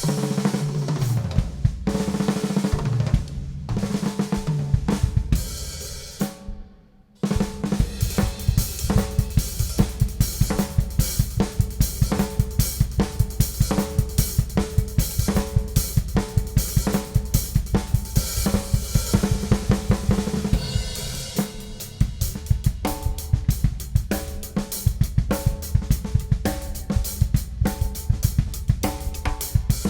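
Ludwig Classic Maple drum kit with a Ludwig Supraphonic snare and Paiste and Sabian cymbals, played freely. The drums ring out and die away about six seconds in; after a brief pause a fast, steady groove of bass drum, snare and cymbals starts, and the pattern changes about two-thirds of the way through.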